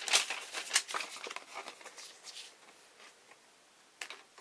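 Paper rustling and crinkling as a model kit's decal sheet is handled and set aside, loudest in the first second and dying away, with a short rustle again near the end.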